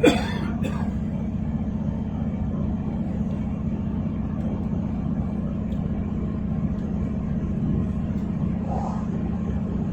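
A short, harsh burst of coughing from an older male smoker, two quick coughs right at the start. It is followed by the steady low rumble of the train running, heard inside the carriage.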